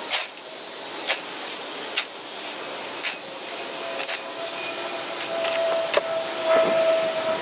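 A steel shovel scraping into gravel and pebbles, with stones rattling, about once a second. A steady drone grows in the background over the second half.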